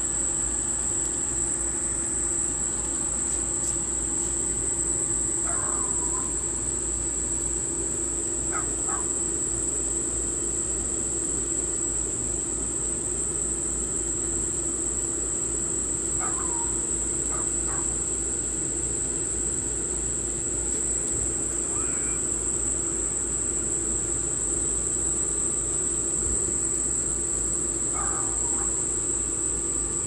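Outdoor ambience: a steady high-pitched drone of crickets or other insects over a constant low hum and rumble, with a few short, downward-sliding bird calls at intervals.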